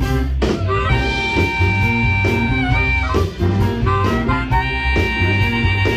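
Live blues band playing an instrumental break: an amplified harmonica solo of long held notes over electric guitar and bass.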